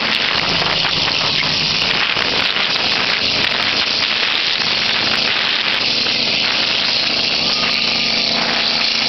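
Wind buffeting the microphone as a loud, steady hiss, with vehicle engines running steadily underneath.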